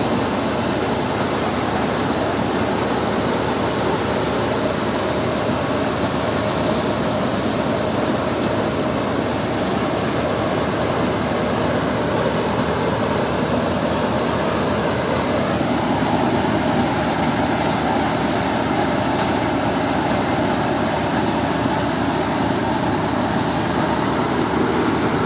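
Power-driven paddy thresher running steadily while rice sheaves are fed into its drum: a continuous, dense mechanical noise at an even level, shifting slightly in tone a little past the middle.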